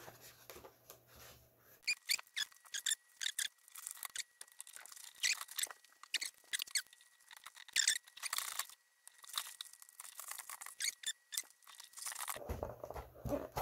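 Irregular small clicks, scrapes and rustles of hands working at a model plane's foam nose, feeding the three motor wires through and fitting the electric motor onto the firewall.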